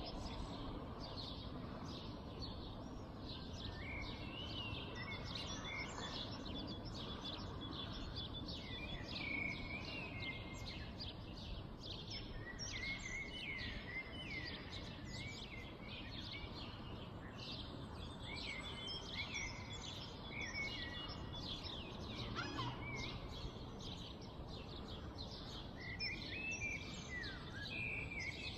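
Birds at dawn: many birds chirping and calling at once, dense and continuous, over a steady low background rumble.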